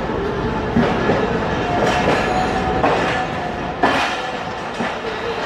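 Pakistan Railways Millat Express passenger coaches rolling slowly past along the platform, their wheels clacking over rail joints about once a second, over a steady rumble and a faint steady wheel squeal.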